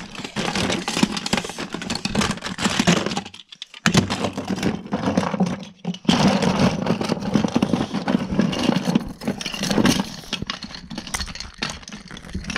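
Loose plastic toys and action figures clattering and rattling as a hand rummages through a wooden toy box, with a short pause about three and a half seconds in.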